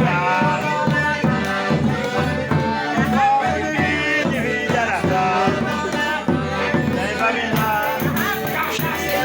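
Group of voices singing a São João folk song for raising the saint's flag, with instrumental accompaniment.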